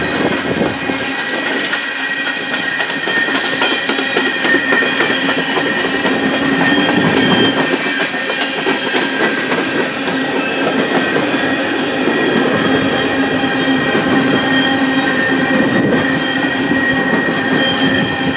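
Coal cars of a long freight train rolling past: steel wheels rumbling and clacking on the rail, with a thin steady high wheel squeal over the top.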